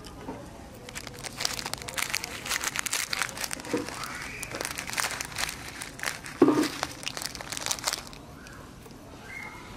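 Dense crinkling and crackling that starts about a second in and stops abruptly near the end, with two brief voice sounds in the midst of it.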